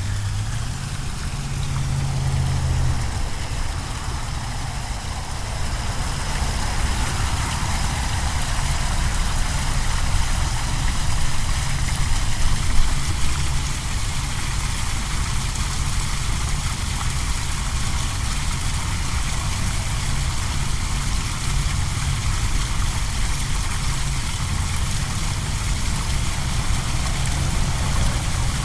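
Small manmade waterfall splashing steadily into a pond, a continuous even rush of water over a steady low rumble.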